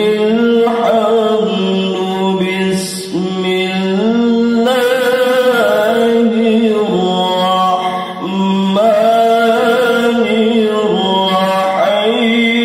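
A male qari reciting the Quran in long, ornamented melodic phrases, the notes held and stepping up and down in pitch. The recitation comes amplified through a PA loudspeaker, with short breath pauses about three and eight seconds in.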